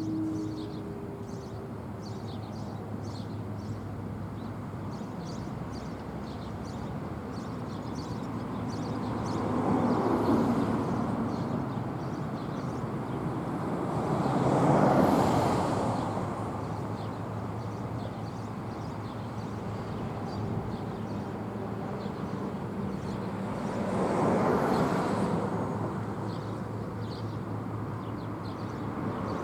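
Road traffic: vehicles passing one after another, each swelling up and fading away over two or three seconds, with a steady low hum beneath. A faint steady tone dies out in the first second or two.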